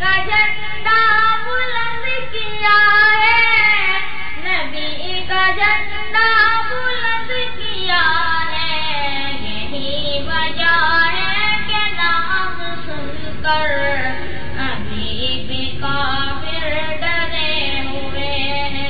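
A solo voice singing a naat, an Urdu devotional song, in long, wavering melismatic lines without pause.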